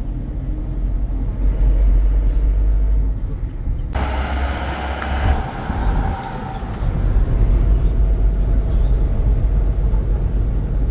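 A car driving, with a steady low road and engine rumble. About four seconds in, a sudden louder rushing sound comes in for a second or so and then fades away.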